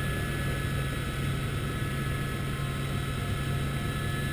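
Helicopter in flight heard from inside the cabin: a steady low rotor and engine drone with a thin, steady high whine over it.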